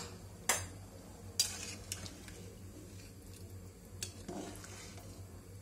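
Long metal ladle stirring rice through watery masala in a metal pressure cooker, with a few sharp clinks of the ladle against the pot.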